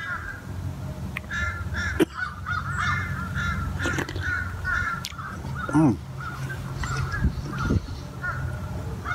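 Soup being eaten with a spoon from a canteen cup: sharp clinks of the spoon against the cup about two and four seconds in, and a slurp near six seconds. Under it run a steady low hum and a string of short repeated calls, like birds.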